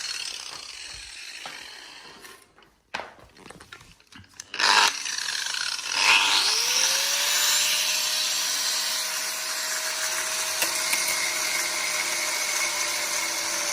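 Handheld angle grinder on wood. The grinding fades and stops, then there are a few seconds of near quiet with small knocks. About six seconds in the grinder is switched on again: its whine rises to speed and it runs steadily while grinding the board's edge.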